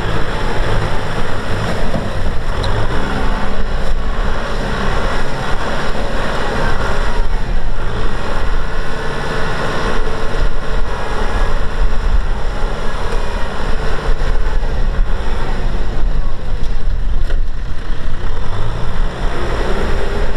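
Kubota M6040SU tractor's diesel engine running loudly and continuously.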